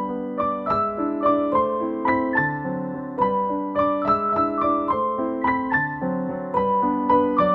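Background piano music: a melody of single notes, about three a second, over lower held notes.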